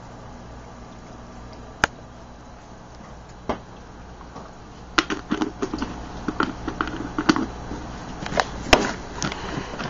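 Steady low hum of aquarium pump equipment. A couple of single sharp clicks come first, then from about five seconds in a busy run of knocks and clicks, like handling noise close to the microphone.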